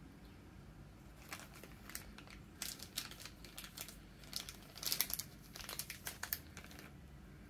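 Clear plastic sleeve crinkling as a fountain pen is slid out of it, in irregular crackles that are loudest about five seconds in.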